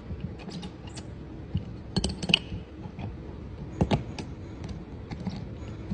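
Scattered light clicks and taps of metal parts as a tube is fitted into an orbital welding clamp and set with an alignment gauge, with a small cluster about two seconds in and a sharper tap near four seconds.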